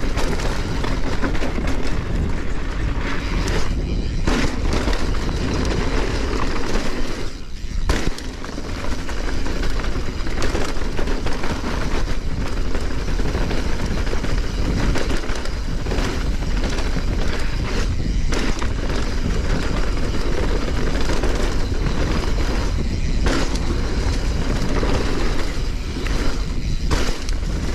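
Mountain bike riding fast down a dirt singletrack: steady wind noise on the camera microphone, tyre roar on the dirt and many short knocks and rattles from the bike over bumps.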